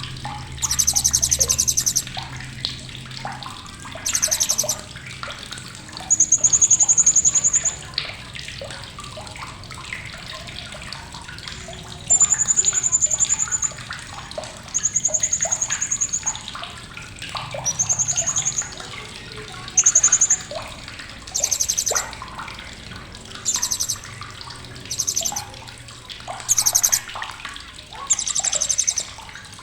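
Blue-crowned hanging parrot (srindit) giving sharp, high-pitched chattering calls in bursts of one to two seconds, repeated about every two seconds. Some bursts are rapid buzzy trills and others thin, steady whistled notes.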